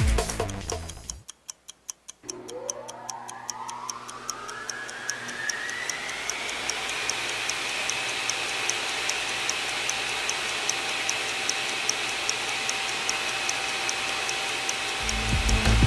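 Soundtrack sound effect: after the electronic music drops out, a steady clock-like ticking runs over a swelling hiss and a tone that glides upward and levels off. The electronic beat comes back in near the end.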